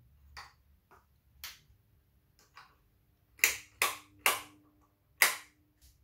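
1983 Evergo Wattmaster ceiling fan starting up: a series of sharp, irregularly spaced clicks as the blades begin to turn, the loudest in the second half, with a faint steady motor hum coming in about halfway through.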